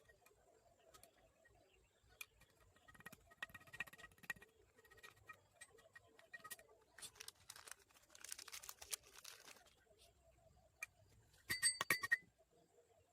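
Faint scattered clicks and knocks of metal tools and engine parts being handled, with a louder cluster of ringing metallic clinks near the end.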